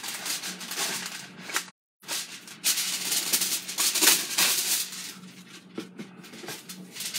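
A sheet of kitchen wrap pulled from its box and crumpled by hand: repeated crackly rustling over a steady low hum. The sound cuts out completely for a moment about two seconds in.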